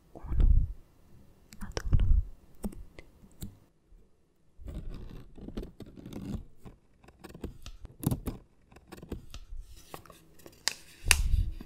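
Paper sticky notes being peeled off a microphone and crinkled close up: crackling, scratching paper with a few heavy thumps of fingers brushing the mic, about half a second in, two seconds in and near the end.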